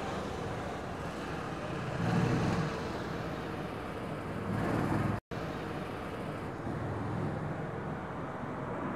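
Distant jet noise of an Antonov An-178 twinjet transport flying overhead, a steady rushing sound that swells twice in the first half. The sound cuts out for an instant about five seconds in.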